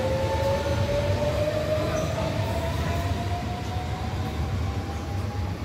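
Trenitalia Jazz electric multiple unit pulling away and gathering speed. Its traction drive whines in a slowly rising pitch over a low rumble of the running gear, fading slightly as the train moves off.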